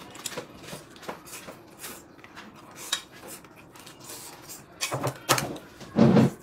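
Dishes and eating utensils clicking and clattering at the table in short, scattered knocks, with a sharper cluster about five seconds in and a louder, deeper thud just before the end.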